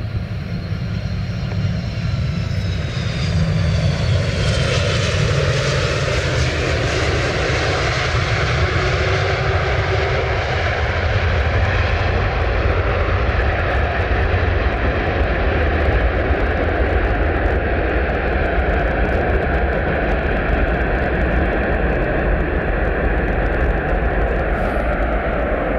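Airbus A330 twin-jet landing. A falling high engine whine on the last seconds of approach, then from about four seconds in a loud, steady rumble as it touches down and rolls out on a wet runway, with the engines held in reverse thrust.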